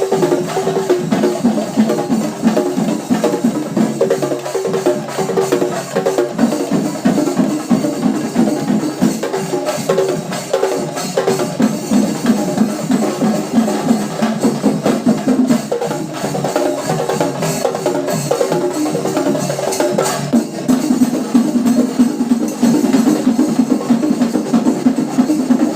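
Kerala temple festival percussion ensemble playing fast, dense drumming that keeps going; about twenty seconds in, the sound thickens into a steadier, fuller band.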